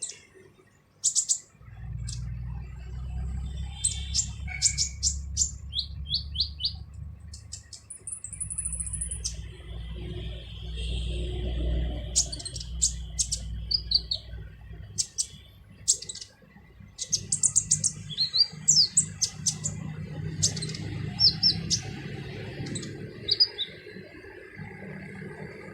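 Kolibri ninja sunbird giving a rapid series of sharp, high chirps and short trills, its harsh ('kasar') call type. A low rumble runs underneath at times.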